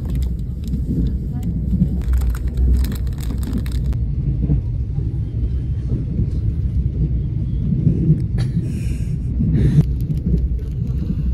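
Passenger train running, heard inside the carriage as a steady low rumble. Plastic food wrapping crinkles over it, in a cluster of crackles during the first few seconds and a short rustle near the end.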